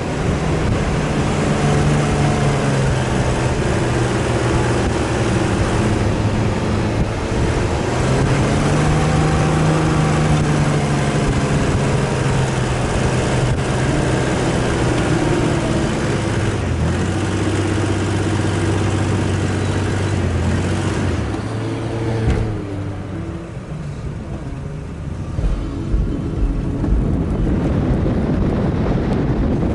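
Off-road 4x4 engine running under load, its pitch rising and falling repeatedly as it drives. About two-thirds of the way through it eases off and gets quieter, with a few low thumps near the end.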